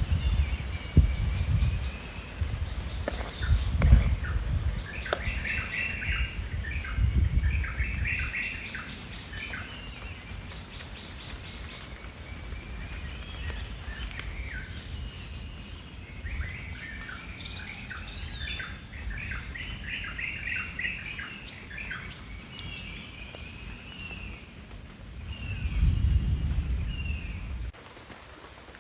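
Birds chirping and calling in repeated quick series of short notes throughout. A low rumbling noise comes and goes over the first several seconds and swells again near the end.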